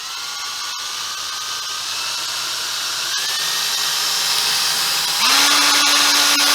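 Small electric drill whining steadily as it bores out the metal rivet of a model railway coach coupling. Its pitch rises about three seconds in, then again about five seconds in, where it also gets louder.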